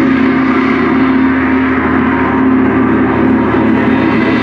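Soundtrack of a projection light show over loudspeakers, holding a sustained, ringing low tone like a gong.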